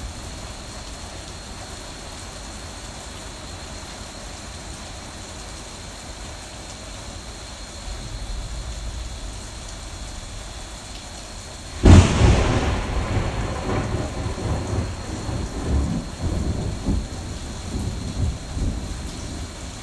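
Steady rain falling, then a little past halfway a sudden loud thunderclap that rolls on as rumbling thunder.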